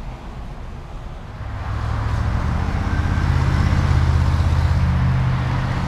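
A motor vehicle's engine running close by: a steady low hum that swells in about a second and a half in and holds.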